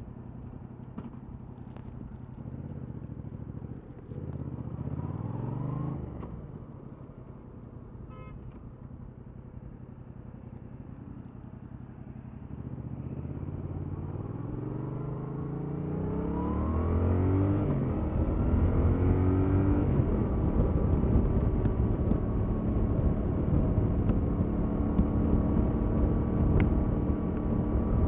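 Yamaha MT-07 motorcycle's 689 cc parallel-twin engine on its stock exhaust. It idles, revs up and back down once about four seconds in, then pulls away with the revs rising twice. From about eighteen seconds in it runs louder and steadily.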